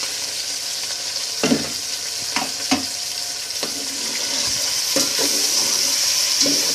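Raw chicken pieces sizzling as they go into hot oil in a metal pot, the sizzle growing a little louder in the second half. A metal spoon stirs them, clinking sharply against the pot several times.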